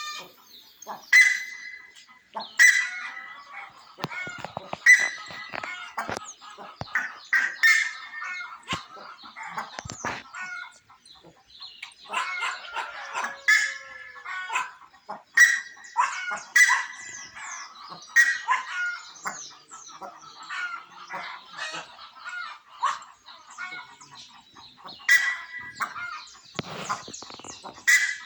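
Birds calling: many short, sharp calls repeating every second or two, with stretches of busier overlapping chatter.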